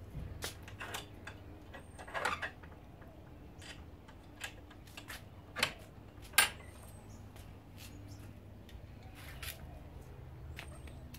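Garden gate's metal bolt and latch clicking and knocking as the gate is worked open: a cluster of clicks about two seconds in, then single sharp clicks, the loudest just after six seconds.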